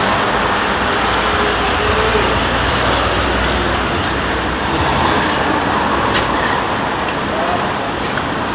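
Steady, loud background noise with a low hum underneath and faint voices in it, with a few light clicks.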